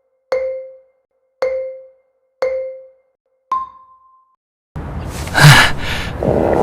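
Quiz countdown chime: four short mallet-like tones about a second apart at one pitch, then a fifth, higher tone, each dying away quickly. A little under five seconds in, the anime scene's audio cuts in abruptly as a dense rushing noise with a loud burst.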